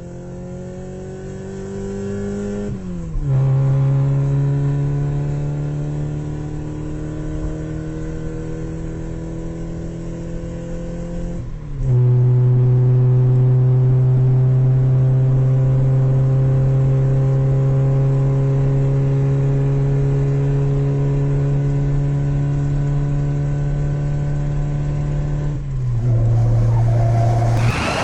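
A vehicle engine running hard. Its pitch climbs and then drops abruptly three times, each drop followed by a louder, steady note. A loud burst of noise breaks in just before the end.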